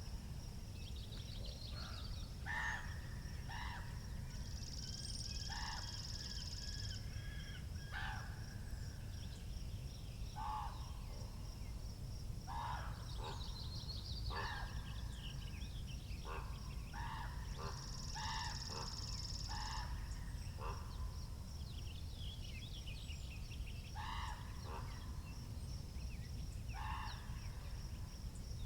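Wind rumbling on the microphone, with birds calling throughout: a run of short loud calls every second or two, over higher twittering and a thin, steady high trill.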